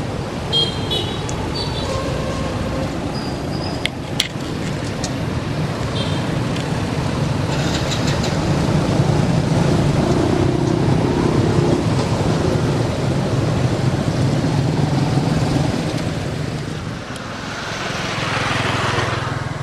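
Steady low hum of a motor vehicle engine running nearby, with a few short bird chirps in the first two seconds and a louder rush of passing traffic near the end.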